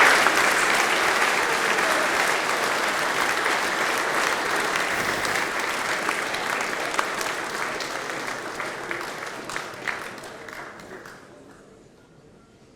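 Audience applauding. The applause slowly fades, thinning to a few scattered claps before it dies away near the end.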